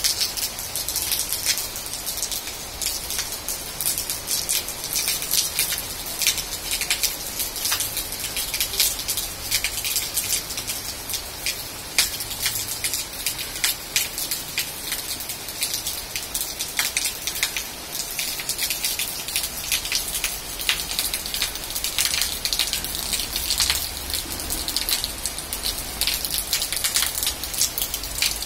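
Steady rain falling on leaves and a wet concrete rooftop terrace, with many separate drop hits close by.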